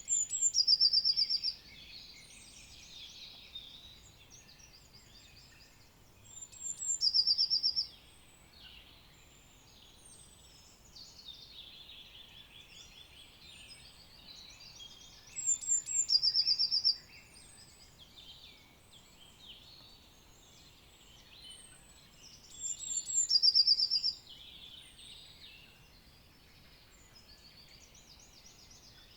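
Forest songbirds singing together, one nearby bird repeating a short, loud song, a high opening followed by a quick trill, about every seven to eight seconds, four times, with a fifth just beginning at the end. A steady background of many other birds' songs and chirps runs underneath.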